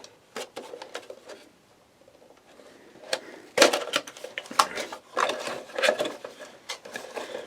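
Crinkling and clicking of plastic packaging being handled and opened around a RAM module. A few sharp clicks at first, then denser crackling from about three seconds in.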